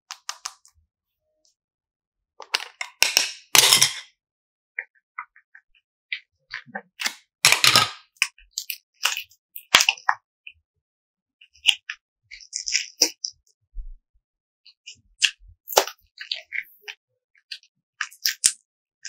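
Hands handling a plastic hexagon case and squeezing and kneading soft purple modelling clay: scattered sharp pops and crackles with a few longer squishing bursts.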